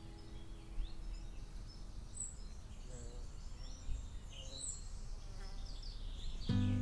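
Meadow ambience: small birds give short, high chirps now and then over a low, steady outdoor rumble. Background music fades out in the first second, and plucked guitar music starts near the end.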